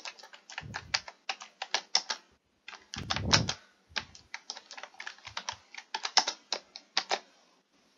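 Typing on a computer keyboard: a fast, irregular run of key clicks with a couple of duller thumps among them, stopping about seven seconds in.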